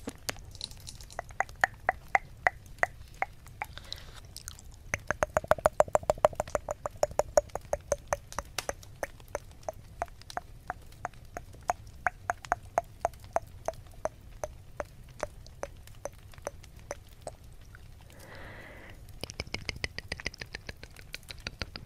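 Wet tongue clicks and mouth noises made right at the silicone ear of a 3Dio binaural microphone, as in ASMR tongue flutters and ear eating. The clicks come in a dense fast run of about eight a second a few seconds in, then slow to a steady three or four a second, and a short breathy hiss follows near the end.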